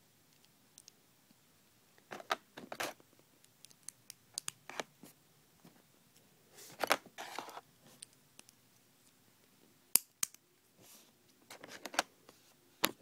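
Small plastic Lego pieces being handled and pressed together: scattered clicks and short scrapes at irregular intervals, a few seconds apart.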